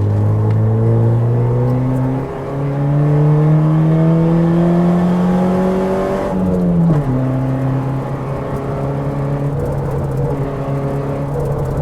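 Car engine under way on a mountain road: about two seconds in the revs jump up with a brief dip in loudness, as at a downshift, then climb steadily under acceleration. Around six and a half seconds they fall sharply and the engine settles to a steady lower note.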